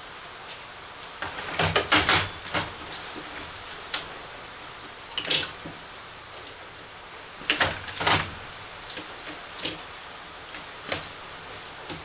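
Scattered metal clicks, clatters and scrapes from hand work inside a monitor's sheet-metal chassis, as pliers and gloved hands work at the wires and circuit boards. The loudest clusters come about two, five and eight seconds in.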